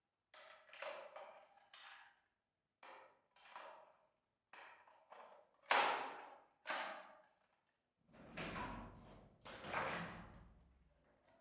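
A series of sharp knocks and clacks in irregular clusters, each dying away within about half a second, with silence between them; the loudest comes about halfway through.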